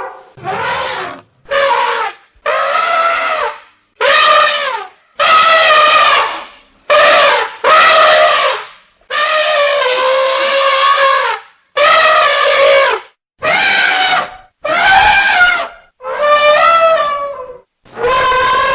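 Elephant trumpeting: a series of about a dozen loud, brassy trumpet calls, each half a second to two seconds long, divided by short pauses.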